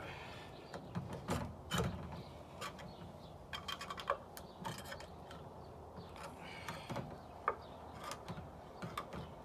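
Knife blade scraping and clicking against the rim of a tin can lid as it is sawed and levered around the can, in irregular short metallic clicks and scrapes.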